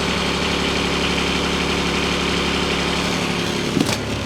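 Kubota D902 three-cylinder diesel of a Hightop HT20 Pro mini excavator idling steadily, soon after a cold start. A brief knock sounds near the end.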